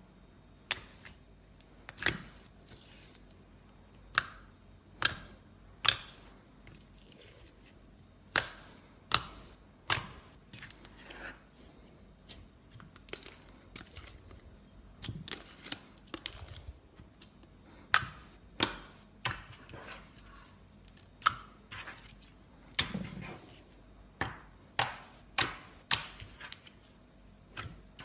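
Slime being pressed and worked by hand, giving sharp, irregular clicks and pops, roughly one a second with a few quick pairs.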